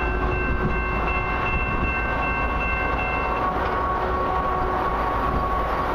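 Long loaded freight train running past with a steady rolling rumble, several steady high tones over it; the highest of those tones stop about three and a half seconds in.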